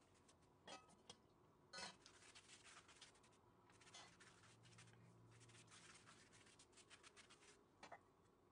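Silicone pastry brush dabbing and sweeping butter over a thin sheet of yufka (filo) pastry: quiet, quick crinkling and rustling of the dry sheet, with a few sharper crackles.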